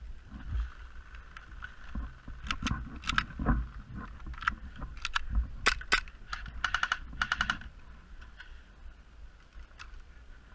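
Airsoft guns firing: scattered sharp pops and short rapid bursts of several shots, most of them between about two and eight seconds in, then fewer and fainter. Low thumps sound among the shots.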